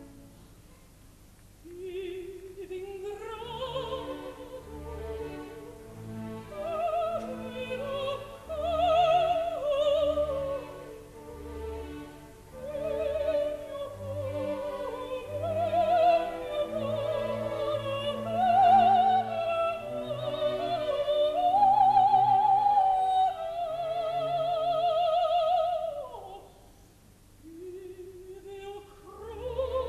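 Operatic soprano singing with wide vibrato over soft orchestral accompaniment. The voice enters about two seconds in, rises through phrases to a long held high note, and slides down near the end before a new phrase begins.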